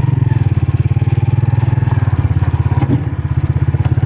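Small motorcycle engine running steadily, its exhaust a fast, even putter, with a couple of faint clicks in the second half.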